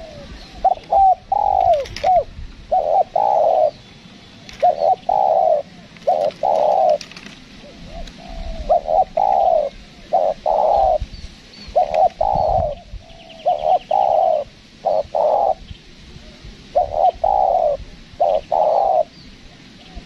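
Spotted dove cooing: about a dozen low, round coos, mostly in pairs, repeated in phrases with short gaps between them. Faint high chirps of small birds sound behind it.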